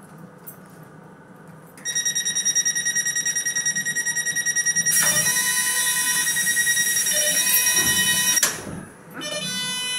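A high electronic warning tone aboard a train, pulsing rapidly, starts about two seconds in. Halfway through a loud hiss of air joins it, and both cut off abruptly; a brief tone sounds again near the end.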